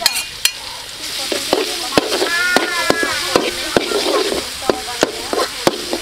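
Minced garlic sizzling in hot oil in a pan, stirred with a ladle that scrapes and knocks against the pan two or three times a second.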